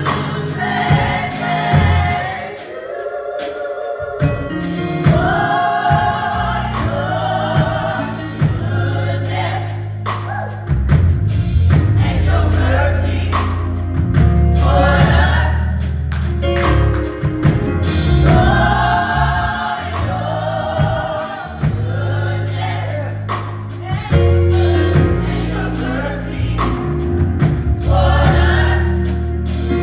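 Gospel choir singing with band accompaniment: a strong sustained bass underneath and a steady beat.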